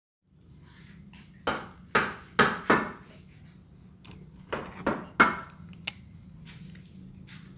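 A run of four sharp, ringing knocks, then after a short pause another three or four, each about half a second apart, over a faint steady hum.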